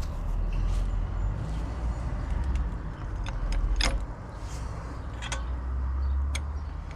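Low rumble with a few sharp clicks and knocks of hands and metal at work around a jacked-up car, the loudest knock about four seconds in.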